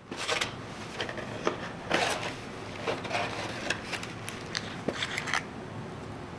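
Cardboard bakery box being opened and the wax paper and paper cupcake liners of small cheesecakes being handled and peeled, a run of short paper crackles and rustles.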